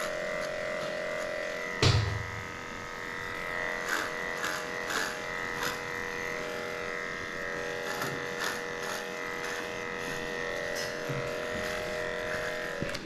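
Cordless electric dog clipper running with a steady hum as it cuts through matted schnauzer coat, with scattered clicks. A loud knock comes about two seconds in, and the clipper stops just before the end.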